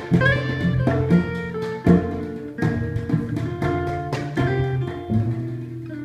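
Live acoustic instrumental music: acoustic guitar picking notes with cello and drum strikes played with sticks. Near the end the playing thins out to a held low cello note.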